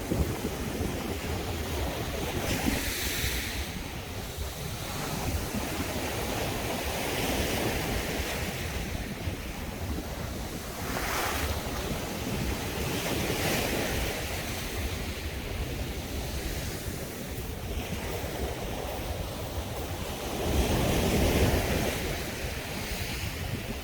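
Sea waves breaking and washing up a beach, one surge after another, with the heaviest wave near the end. Wind buffets the microphone underneath.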